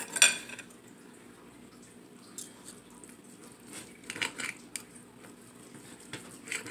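Knife and fork cutting a steak on a ceramic plate. A sharp clink comes just after the start, then a cluster of short scrapes and clicks about four seconds in and more near the end, with quiet in between.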